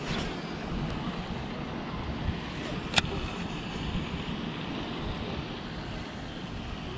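Wind rumbling on the camera's microphone, a steady low buffeting noise, with one sharp click about three seconds in.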